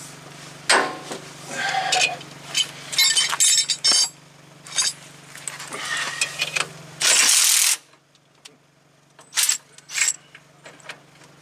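Metal clinks and clatter of a C-frame ball joint press and its adapter cups being handled and worked at a truck's steering knuckle, in scattered knocks and taps. A brief loud rustle comes about seven seconds in.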